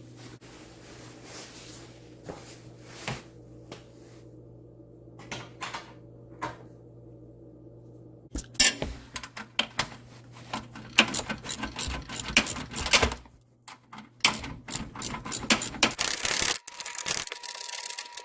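Socket tools working on the car's fasteners: a few scattered clicks, then two dense runs of rapid metallic clicking and clinking, the second starting after a brief pause.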